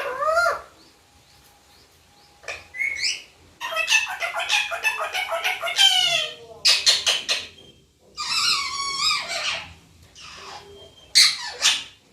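Indian ringneck parakeet calling in several bursts of screechy squawks and chatter, the longest a dense run of rapid, pitch-sliding chatter in the middle.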